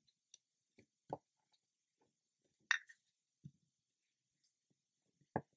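A few scattered soft taps and knocks from hands pressing and rolling Play-Doh flat on a tabletop, with a sharper click nearly three seconds in and a duller knock near the end.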